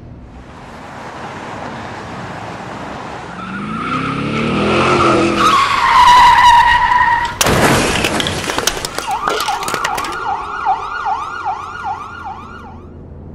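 Car engine revving with rising pitch, then tyres screeching in a long skid and a loud crash about seven seconds in, followed by a clatter of falling debris. A fast warbling siren tone then starts and repeats about three times a second until near the end.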